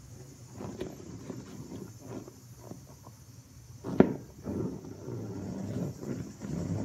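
Soft rubber ball squashed under a bare foot on a wooden floor: irregular rubbery creaking and squelching as it is pressed flat and slowly deflated, with one sharp knock about four seconds in.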